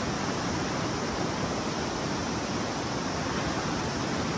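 The Patapsco River rushing fast over rocky rapids: a steady, even rush of whitewater.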